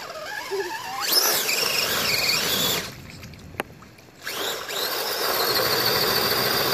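Brushless electric motor of an RC rock crawler whining as it revs up and down. It pauses briefly about three seconds in, where there is a single click. It then holds a steady high whine as the tires spin and throw mud.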